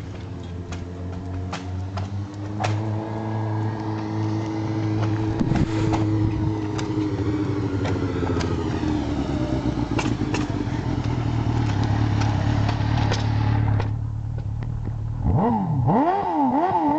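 Suzuki GSX-R inline-four motorcycle engine through a shortened Yoshimura RS-3 exhaust, running at low revs with its pitch slowly rising and falling. Near the end it is revved in several quick throttle blips.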